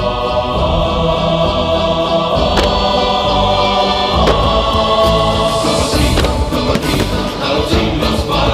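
Choral music with sustained chords, with several sharp starmine firework bangs breaking through from about two and a half seconds in.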